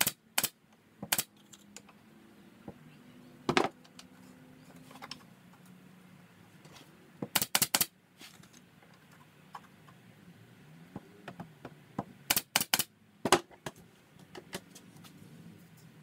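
Pneumatic brad nailer firing into thin oak slats: about a dozen sharp snaps, some single and some in quick runs of three or four.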